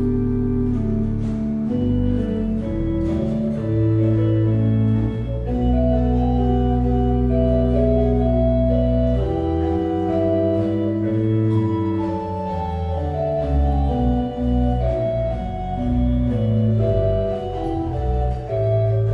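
Organ playing slow music in long held chords over a low bass line, the chords changing every second or two.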